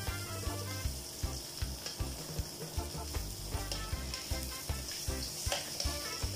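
Dried slipmouth (sapsap) sizzling as they fry in oil in a wok, with a metal spatula scraping and turning them against the pan. Background music with a steady bass beat plays under it.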